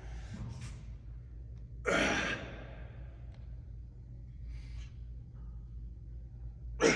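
A man breathing heavily while flexing: one loud, breathy exhale about two seconds in, a few faint breaths, and another sharp breath at the very end, over a steady low hum.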